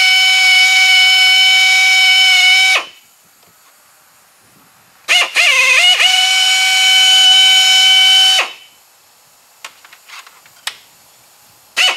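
Air drill boring out the bolt holes of a hood hinge: a loud, steady high whine with a hiss, dipping in pitch as it spins up. It runs for about three seconds, stops, and runs again for about three seconds. A few light clicks follow, and the drill starts again right at the end.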